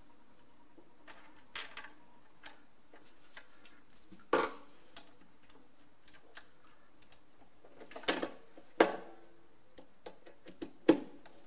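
Scattered clicks and knocks of a plastic doorbell chime housing being handled against the wall while a screwdriver drives its mounting screw, with several sharper knocks about 4 s in and in the last few seconds.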